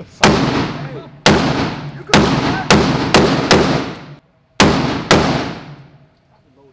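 Eight gunshots fired in an uneven string over about five seconds, each one trailing off in echo.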